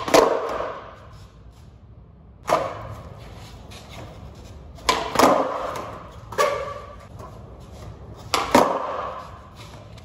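Skateboard clacking on a concrete floor as the board is popped and slaps back down, about five sharp hits, some in quick pairs, each echoing in a large hall.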